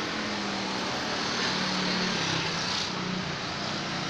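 Steady hum of street traffic, with a low engine drone that comes and goes.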